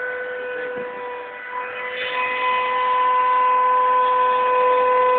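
Small CNC machine's motor running with a steady high whine, growing a little louder about two seconds in.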